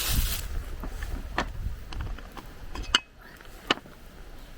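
Wind rumbling on the microphone for about three seconds, then dropping away, with a few sharp clicks or snaps, the loudest two near the end.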